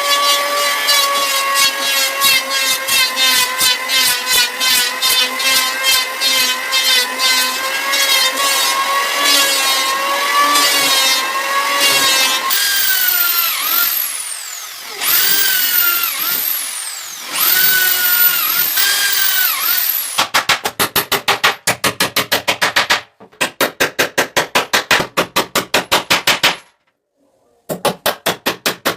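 Power tools working wood, in three parts. First a motor runs steadily with a fast pulsing rhythm. Then comes a stretch of whining that glides down and up in pitch. Last are runs of rapid, evenly spaced strikes, broken by short pauses.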